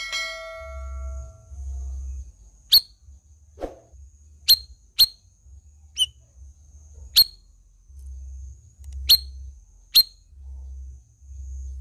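Caged cucak rawis calling: about seven sharp, very short whistled notes, each a quick downward stroke, spaced about a second apart. A steady pitched tone sounds for the first second and a half.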